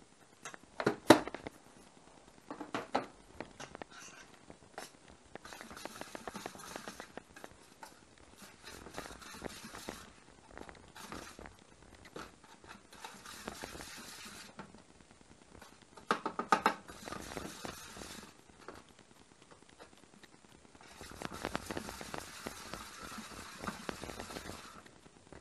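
Metal spoon clinking against a stainless steel tray and scraping through sugar and roasted soybean flour as the two are stirred together, in several spells of scraping. The sharpest clinks come about a second in and again just past the middle.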